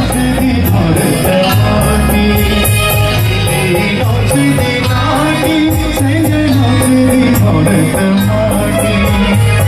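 Live Himachali folk music, a mostly instrumental passage of a song with a steady beat and a held melody line.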